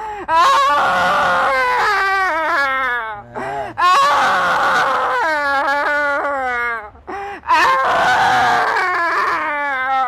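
A woman wailing and screaming in three long, high cries of about three seconds each, with short breaks between them.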